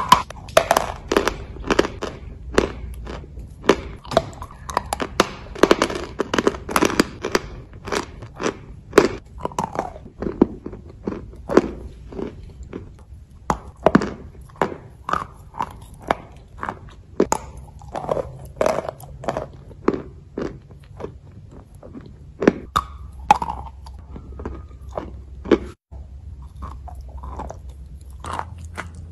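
Chalk being bitten and chewed: a run of sharp, dry crunches, about two or three a second, thinning out somewhat near the end.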